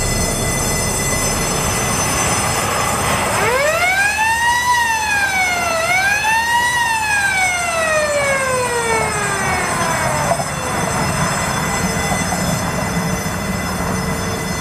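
Lift bridge's warning siren winding up, dipping briefly, rising again and then winding slowly down over several seconds. Underneath are a steady noise and a constant thin high whine.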